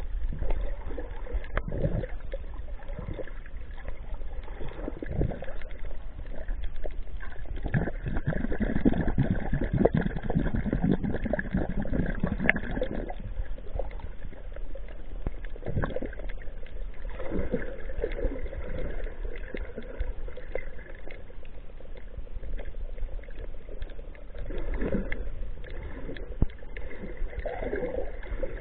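Muffled underwater water noise picked up through an action camera's waterproof housing: a steady low rumble with sloshing swells that rise and fall as the camera moves through the water.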